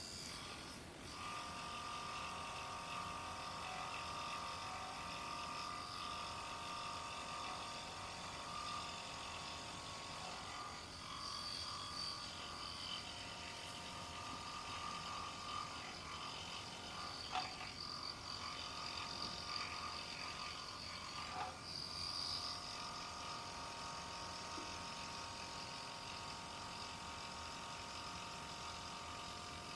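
Scroll saw running and cutting a poplar board, a faint steady buzzing whine, with a few light clicks about two-thirds of the way through.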